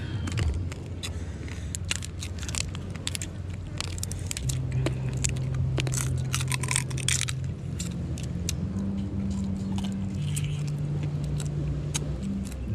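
Cooked land crab shells being cracked apart by hand and bitten into: a rapid run of sharp cracks and crunches, thickest in the middle stretch. Beneath it runs a low steady motor hum that shifts pitch a few times.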